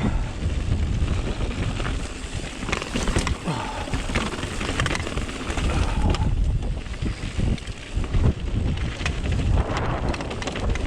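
Strong gusting wind buffeting the microphone, with frequent knocks and clicks from a mountain bike rattling over rocks and roots on a descent.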